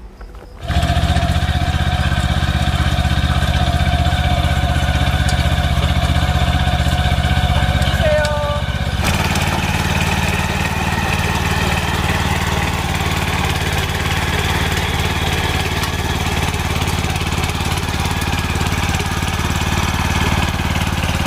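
Engine of an Asia (AMC) walk-behind rotary tiller running steadily under load as its tines churn through soil, starting about a second in. The sound shifts in tone around nine seconds in.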